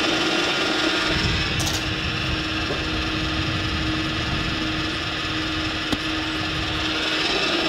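Fuel dispenser pumping diesel into a car's tank: steady hum of the pump with fuel rushing through the nozzle, the hum stopping near the end.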